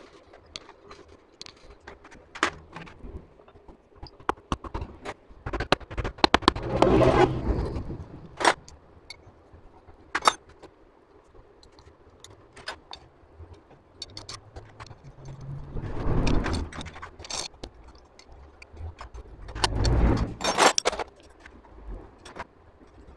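Metal engine parts and hand tools clinking and scraping while a Honda CG125's cylinder head is fitted over its studs and its nuts are started with a T-handle socket wrench. Many short sharp clicks, with three longer scraping, rubbing noises, the first about six seconds in.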